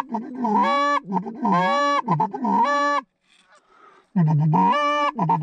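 Canada goose calls blown by hunters: a rapid series of loud honks, each breaking from a low moan up to a higher note, with a pause of about a second past the middle.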